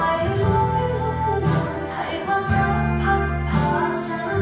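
Music with a singing voice played over loudspeakers in a hard-surfaced restaurant room that has no acoustic panels yet, so the sound echoes around the room. Long held bass notes sit under the melody.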